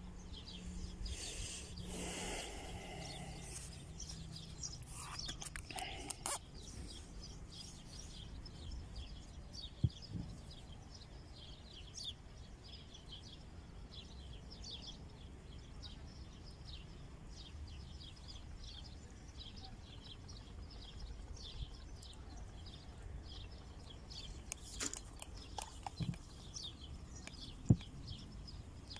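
Small birds chirping over and over in short, high calls, over a low steady rumble. A couple of sharp knocks stand out, one about a third of the way in and a louder one near the end.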